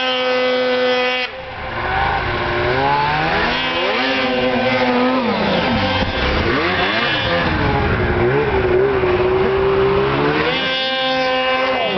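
Several small vehicle engines running together, their pitch rising and falling as they rev up and ease off, with a brief drop in level about a second in.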